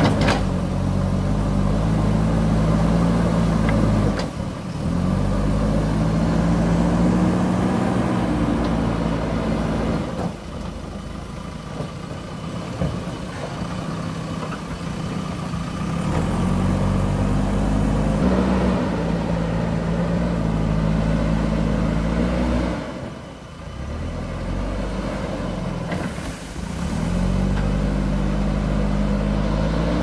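JCB 3CX backhoe loader's four-cylinder diesel engine working under load as the front bucket pushes and lifts soil. It revs up for several seconds at a time and drops back between pushes, with brief lulls about 4, 10 and 23 seconds in.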